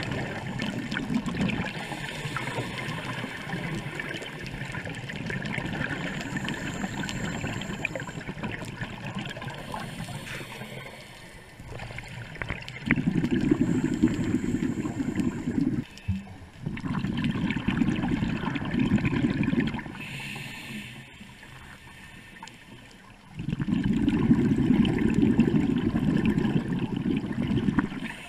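Scuba diver breathing through a regulator underwater: a steady bubbling hiss, then three loud bursts of exhaled bubbles in the second half, each two to four seconds long.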